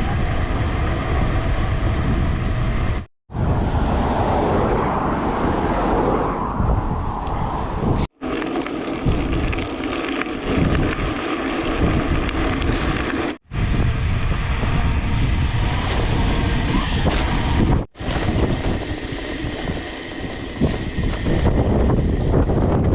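Wind buffeting the microphone of a camera on a gravel bike while riding, a steady rushing and rumbling. It breaks off abruptly four times where short clips are joined.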